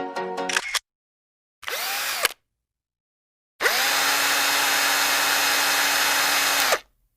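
A small electric motor, like a power drill, whirring in a short burst, then running steadily for about three seconds, its pitch rising as it spins up and falling as it winds down. Background music stops just before it.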